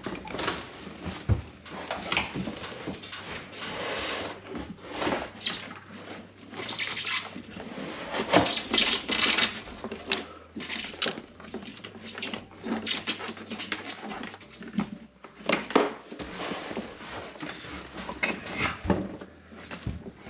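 Irregular rustling, scraping and light clicks of a fish finder power cable being worked through a hole in a boat's console by hand.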